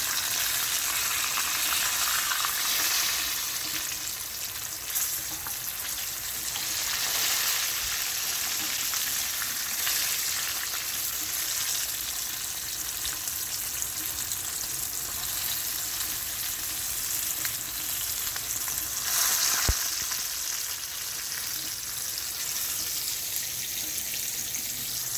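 Striped bass frying in olive oil in a pan, a steady sizzle with fine crackling. A single sharp tap comes about three-quarters of the way through.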